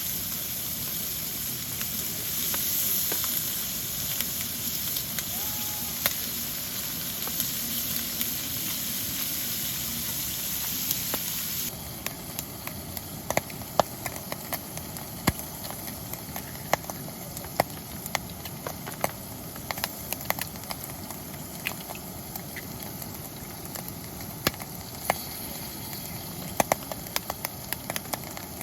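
Rain falling as a steady hiss. About twelve seconds in it changes abruptly to a quieter sound with scattered sharp drips and taps.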